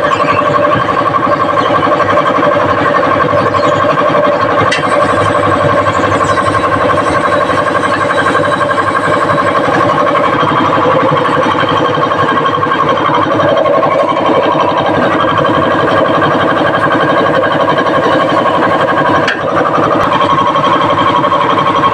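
Tyre-shop machinery running steadily, a motor sound with a fast, even pulsing beat that carries on without a break.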